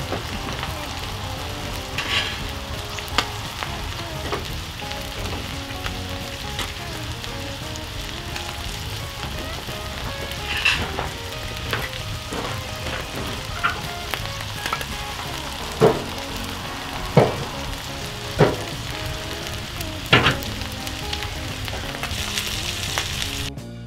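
Wild boar burger patties sizzling in a frying pan on a wood-burning stove: a steady frying hiss with sharp pops and knocks scattered through it. The sizzle drops away suddenly near the end.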